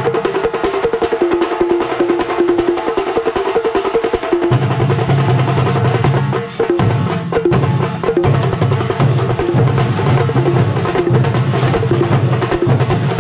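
Shinkarimelam chenda ensemble drumming in fast, dense rolling strokes. A low pitched tune plays under the drums; it is missing for the first four and a half seconds, then comes back in.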